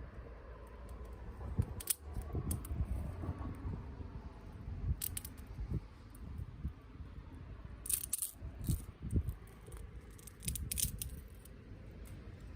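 Wood campfire burning, with irregular sharp crackles and pops over a low rumble, a few of them coming in quick clusters.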